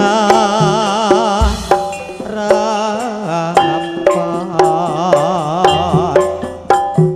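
Live Javanese campursari music: a sinden sings long notes with a wide, wavering vibrato over a low steady tone and regular drum strokes about twice a second.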